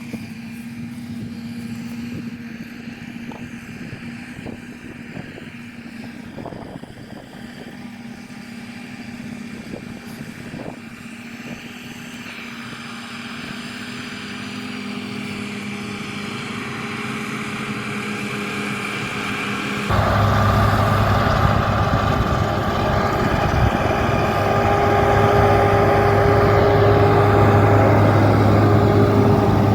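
Farm machinery engine running steadily, gradually getting louder. About twenty seconds in it cuts abruptly to a louder, closer engine.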